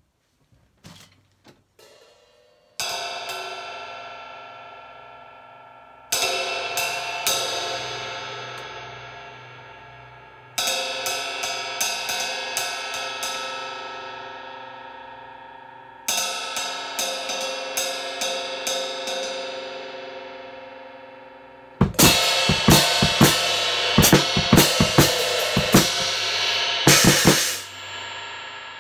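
Drum kit played freely. After a few light taps, short flurries of cymbal strikes come four times, each left to ring out and fade over several seconds. About 22 seconds in comes busier, louder playing on drums and cymbals together, and it cuts off sharply near the end.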